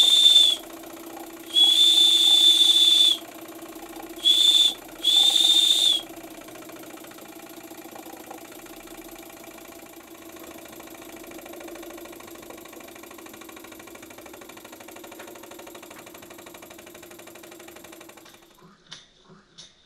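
Small steam whistle on a vintage German toy steam engine's brass boiler, blown in four high, steady blasts over the first six seconds, the third one short. Under it and after it, the little steam engine runs steadily with a fast, even beat. Near the end this gives way to quieter separate ticks.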